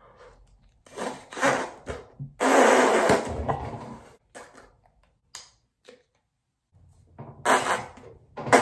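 Hard puffs of breath blown into a small rubber balloon that stays nearly uninflated: a few short puffs, then one long forceful blow about two and a half seconds in lasting over a second, and more short puffs near the end.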